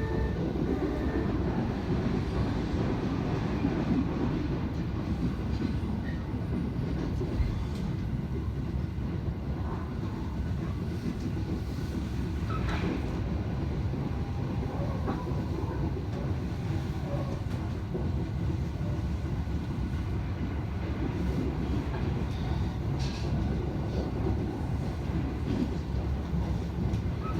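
Train running noise heard inside a passenger car: a steady low rumble of wheels on rail with a few faint clicks, the train running slowly under a strong-wind speed restriction of 25 km/h.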